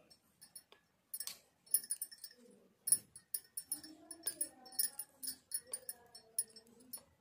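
Knitting needles clicking lightly against each other as stitches are worked, an irregular run of small clicks.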